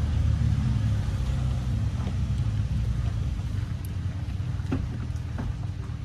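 A motor vehicle's engine running, a low steady rumble that eases off slightly toward the end, with a few faint light taps over it.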